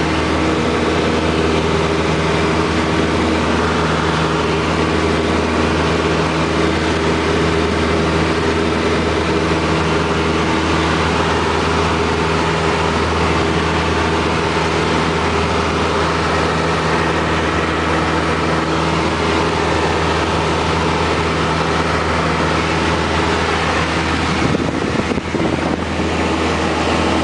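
Cabin sound of a Piper Tomahawk's four-cylinder Lycoming engine and propeller running steadily at takeoff power through the takeoff roll and climb-out of a touch and go. The sound wavers briefly near the end.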